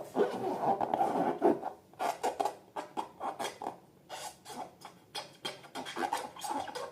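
Slime being squished and worked by hand, with a run of quick wet clicks and crackles that grows thicker about two seconds in.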